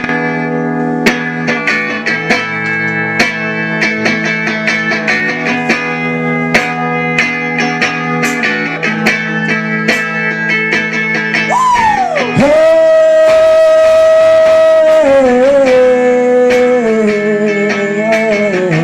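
Instrumental intro of a song: picked guitar notes repeat over a steady low drone. Near the middle a high note slides in and is held for a few seconds, then steps down in pitch near the end.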